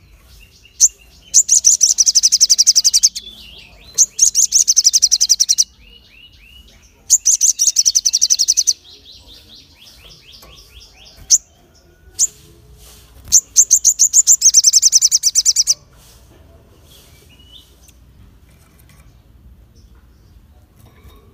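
Male olive-backed sunbird ('sogon') singing in full song: four loud bursts of very fast, high, sharp trills, each a second and a half to two and a half seconds long, with a few single sharp notes and softer chirping between them. The song stops about two-thirds of the way through.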